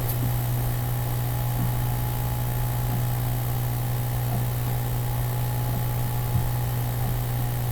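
A steady low hum with a faint hiss beneath it, unchanging throughout.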